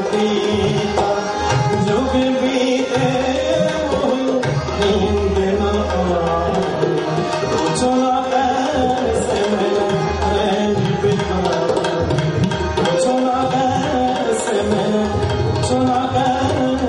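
Live ghazal accompaniment: tabla playing a steady rhythm with deep bass strokes under sustained harmonium melody.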